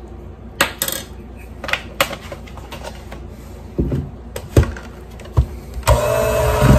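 A few scattered clicks and knocks, then about six seconds in an electric hand mixer switches on and runs steadily, beating creamy vanilla frosting in a plastic bowl.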